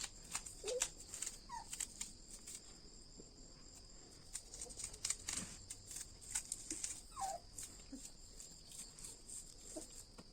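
Steady high insect drone, with scattered light clicks and a few faint short chirps.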